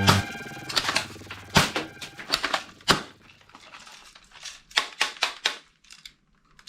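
Irregular sharp clicks and knocks of hard plastic toy parts being handled. They come quickly at first and thin out in the second half.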